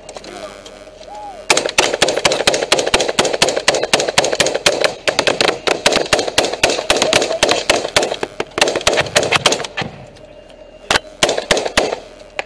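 Close, rapid automatic gunfire from the vehicle's turret, starting about one and a half seconds in and running in long strings of shots. It breaks off briefly near the end, then a few more shots follow.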